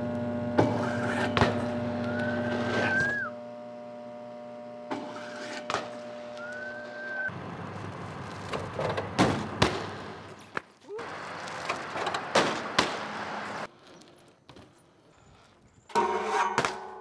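BMX street riding in several short clips: the bike rolling, with sharp knocks and clatters of landings and crashes. A high squeal rises and then drops twice in the first seconds, over a steady hum.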